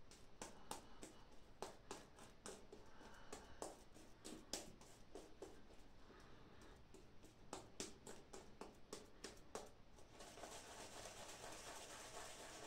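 Shaving brush working soap lather over the face and stubble: faint crackling brush strokes with many small clicks. About ten seconds in it turns into steadier, continuous scratchy rubbing.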